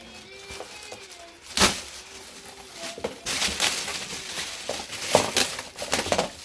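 A single sharp knock, then about three seconds of crinkling and rustling with small clicks as packaging is handled during an appliance unboxing.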